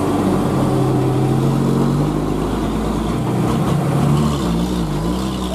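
Heavy diesel dump truck engine running as the truck moves slowly past. Its pitch rises a little about two seconds in and wavers near the end.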